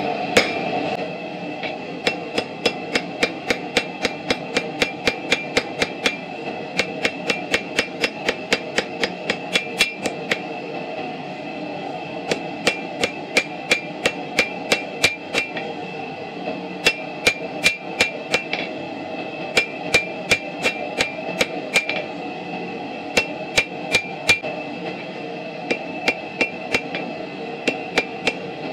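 Blacksmith's hammer striking a red-hot railroad spike on a steel anvil while forging a knife blade, in runs of quick blows about three a second with short pauses between them. Each blow rings the anvil with a clear high ping.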